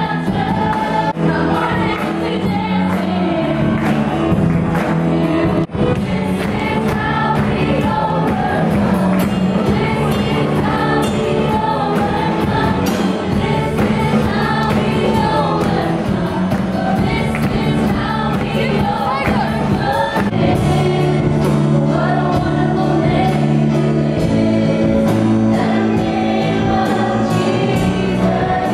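Live worship band playing a Christian song, with a room of voices singing along like a choir.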